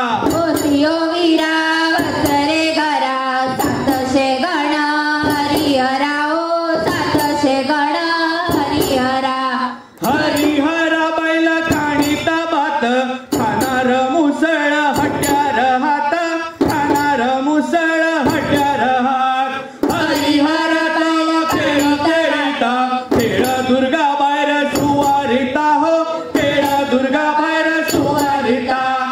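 Singing of a Goan musal (pestle dance) folk song over percussion with a steady beat, broken by a few short pauses between phrases.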